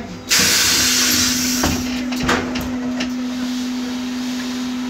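Pneumatic passenger doors of a MAN Lion's Classic city bus converted to electric drive, working with a loud, sudden hiss of compressed air about a third of a second in, followed by a few clunks and a continuing hiss over a steady hum.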